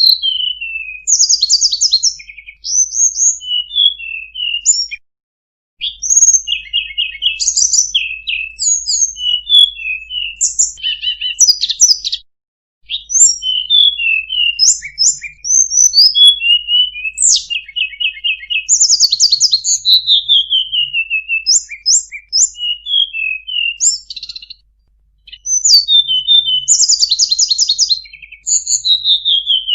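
Tledekan gunung singing a fast, varied song of high chirps, rapid trills and down-slurred whistles, in phrases broken by short pauses about five, twelve and twenty-five seconds in.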